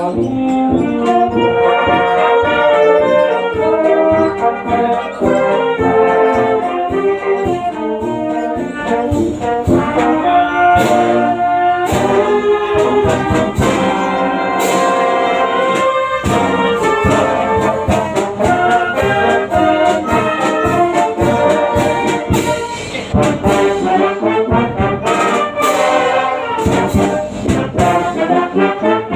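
A brass band of trombones, saxophones, mellophones and tuba playing a tune together, with regular bass drum beats and sharp percussion strikes through it.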